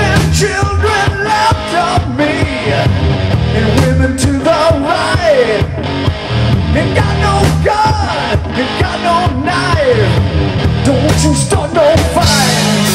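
Live rock band playing loudly: electric guitars and a drum kit. The music changes shortly before the end.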